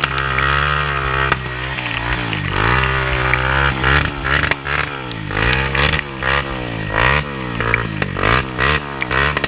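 Sport quad ATV engine revving up and down over and over while stuck in mud, its rear wheels spinning; the revs come in longer swells at first, then in quick short blips in the second half.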